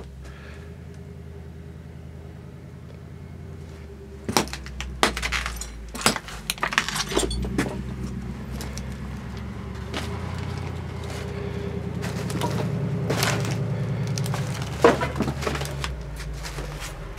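Footsteps knocking and crunching over debris on a littered cabin floor, with scattered clinks, over a steady low hum that swells from about ten to fifteen seconds in.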